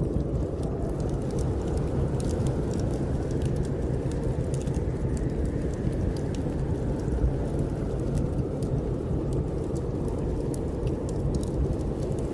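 Snowstorm wind blowing in a steady low rush, with a wood fire in a fireplace crackling in frequent small, sharp pops.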